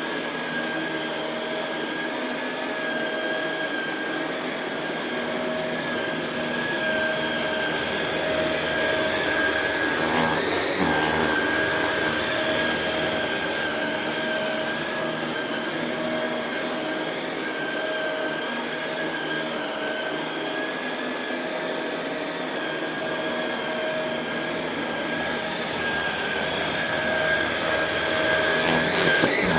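Shark Rotator Pro Lift-Away NV500 upright vacuum cleaner running steadily on carpet, its motor giving a constant high whine over a rushing airflow noise. It swells slightly louder a few times.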